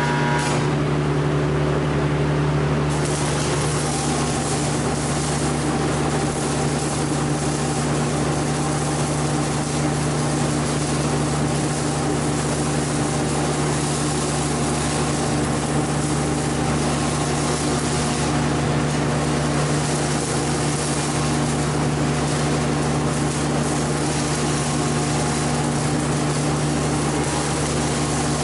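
Electric arc welding: the arc crackles and hisses steadily, starting about three seconds in and running on, over a constant low machine hum.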